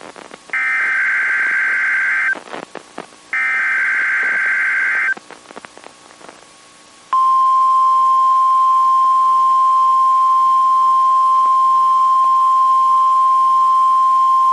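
EAS alert on NOAA Weather Radio. Two SAME header data bursts, each a harsh screeching buzz lasting under two seconds, come a second apart with radio static between them. About seven seconds in, the steady single-pitch 1050 Hz weather radio warning alarm tone begins and holds.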